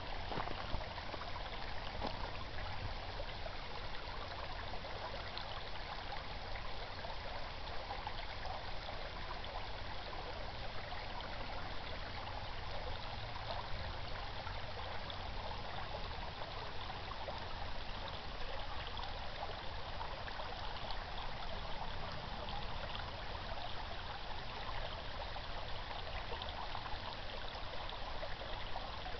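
Small brook babbling over its bed: a steady, even trickling and rushing of water.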